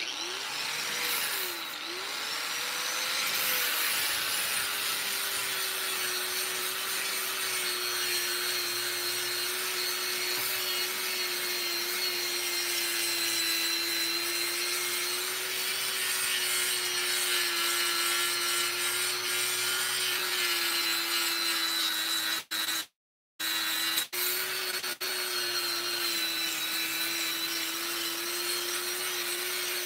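Electric angle grinder with a flap disc spinning up, then running steadily while grinding a pitted steel slab: a steady motor whine under a harsh hiss of abrasive on metal. The sound breaks off for an instant about three-quarters of the way through.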